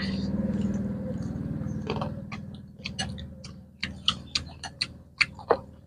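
People chewing crisp star gooseberries: a scatter of short, sharp crunches and spoon clicks against a ceramic bowl. A low droning hum fades out over the first two seconds.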